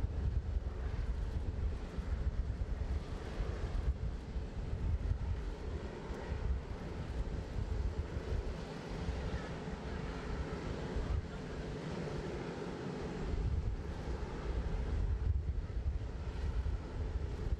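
Boeing 747-400 jetliner parked and running: a steady low rumble with a faint constant hum.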